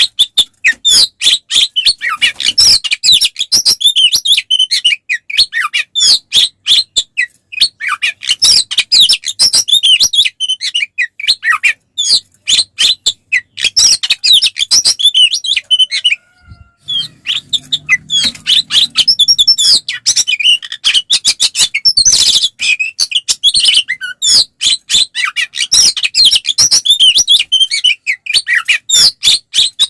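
Oriental magpie-robin (kacer) singing its loud 'ngeplong' fighting song: a fast, unbroken run of varied chirps and whistles, with one brief pause about halfway through. This is the aggressive, challenge-mode song of a bird in fighting form.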